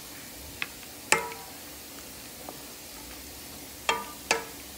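A utensil knocking against a stainless steel cooking pot four times, each knock making the pot ring briefly, the second the loudest. Under it a faint steady sizzle from the pot of black beans.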